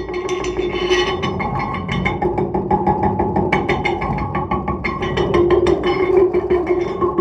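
Two serpentine stone plates lying on a bass drum, tapped quickly and continuously so that they ring on with held, overtone-rich tones beneath the taps.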